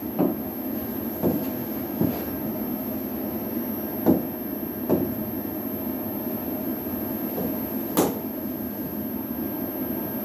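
A stylus and hand tapping against an interactive whiteboard's touch screen: about six separate knocks at uneven intervals, the sharpest about eight seconds in, over a steady background hum.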